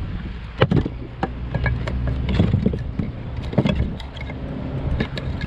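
Conch shells being handled and cleaned: scattered sharp clicks and knocks of shell, over a steady low rumble.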